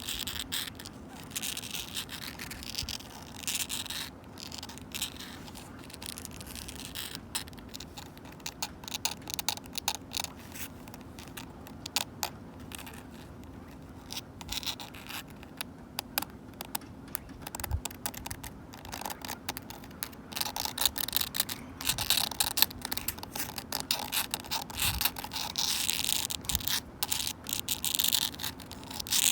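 Long natural fingernails scratching and scraping on a wooden bench, in uneven strokes with many small clicks and taps. The scratching comes and goes and grows busier and louder in the last third.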